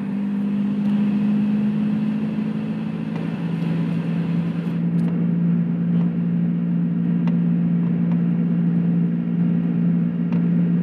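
Car engine droning at a steady cruise in gear, with tyre and road noise, heard from inside the cabin; the drone's pitch drops slightly about three seconds in.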